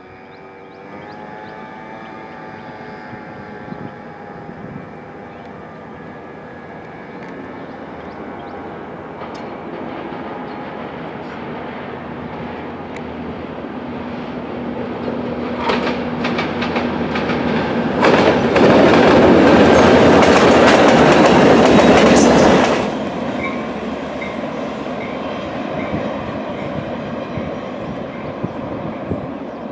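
Two Norfolk Southern diesel road-switchers, a GP38-2 and a GP60, pull a single covered hopper past. The sound swells as they approach, is loudest for about five seconds with rapid wheel clatter over the junction's rail joints, then drops off sharply, leaving a quieter steady rumble.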